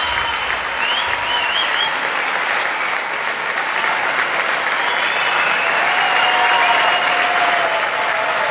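Large audience applauding steadily for a finished gymnastics routine.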